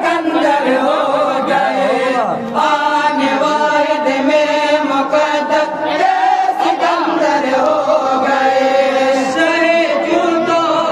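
A man chanting devotional verse into a microphone, a melodic recitation with long held notes and slow turns of pitch.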